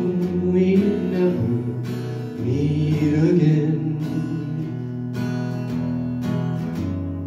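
Acoustic guitar strummed in a slow country ballad, with a man singing long, held notes over it.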